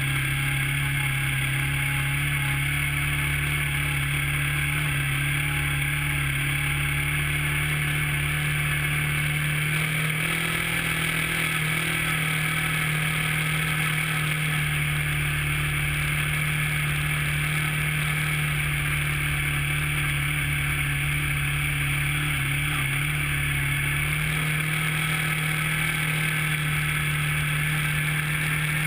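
Steady drone of a vehicle's engine and road noise while driving, with a constant hiss above it. The engine tone steps up slightly about ten seconds in and again near the end.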